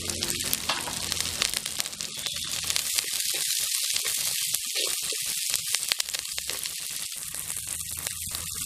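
Chopped onions, green chillies and curry leaves sizzling and crackling in hot oil in a clay pot while being stirred with a steel spatula.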